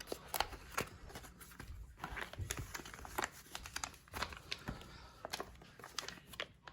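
Knife packaging being handled and opened by hand: irregular crinkling, rustling and small clicks.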